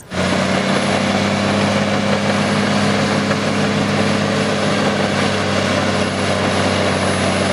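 Caterpillar D7R crawler bulldozer's diesel engine running steadily under load as it pushes dirt with its blade, a low even drone.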